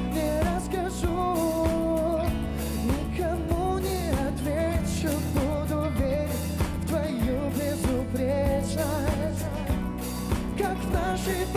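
A live rock band plays an instrumental stretch of a song between sung lines: electric guitar, bass, keyboards and drum kit over a steady beat, with a wavering melody line on top.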